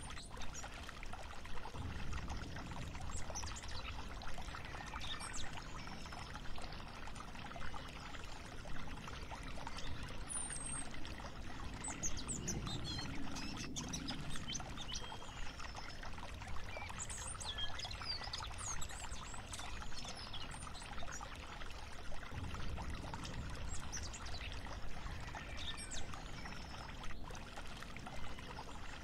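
Ladle stirring chocolate syrup in a steel saucepan: the liquid swishes and sloshes steadily as it cooks and thickens.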